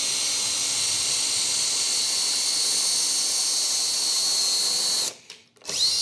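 Hercules HC92K1 20-volt brushed cordless drill running at steady speed with a high motor whine as a 5/32-inch bit bores into a wooden board. It stops about five seconds in and starts again just before the end, the whine rising as it spins back up.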